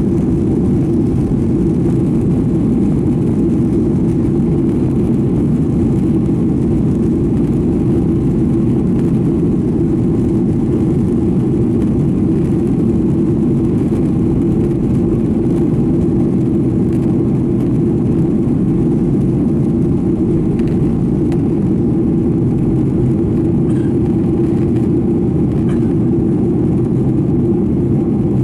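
Steady low rumble of engine and airflow noise inside the cabin of a Boeing 737-900ER, its CFM56-7B turbofans running at constant power.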